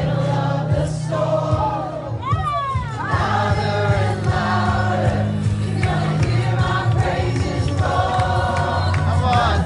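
Live Christian worship music played through PA speakers, with a large crowd singing along over long held bass notes.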